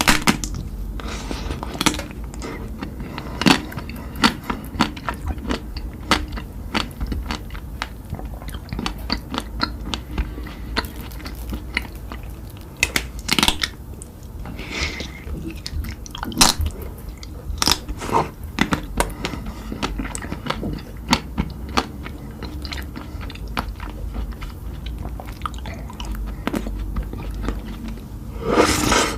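Close-miked eating: a person biting and chewing crunchy food, with frequent sharp, irregular crunches and wet mouth sounds. A louder burst of crunching comes about a second before the end.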